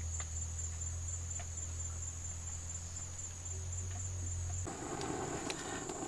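Steady low hum of a wild honeybee colony clustered on its open comb, over a thin high insect trill. The hum stops abruptly about three-quarters of the way through, leaving the insect trill.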